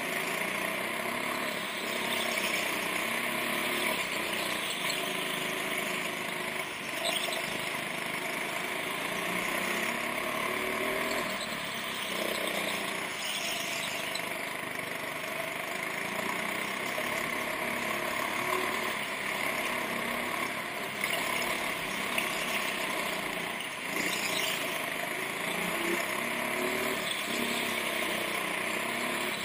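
Go-kart engine running continuously, its pitch rising and falling as the kart accelerates and slows through the corners, heard from onboard the kart.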